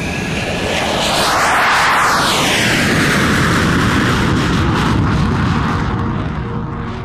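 A fighter jet passing, its engine noise swelling to a peak about two seconds in with a sweeping, phasing hiss, then fading near the end.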